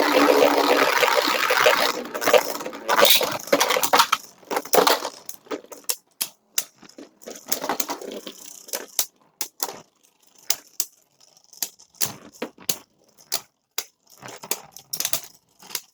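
Two Beyblade spinning tops, one of them 3D-printed, battling in a plastic stadium: a dense spinning, scraping rush for about the first two seconds, then sharp clacks of the tops colliding that come further and further apart as they wind down.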